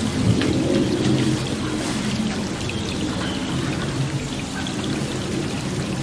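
Steady rain falling, with a low rumble underneath.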